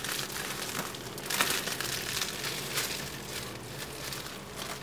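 Bubble wrap crinkling and rustling as it is handled and pulled off, with sharper crackles about one and a half seconds in and again near three seconds.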